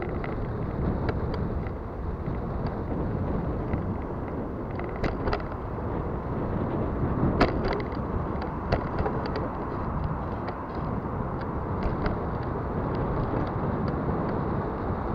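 Bicycle being ridden, with steady wind and road noise and scattered clicks and knocks, the sharpest a little past halfway. The rattle comes from a shot bottom bracket ("pedal box") and a worn rear sprocket and chain, making the bike sound like a bucket of bolts.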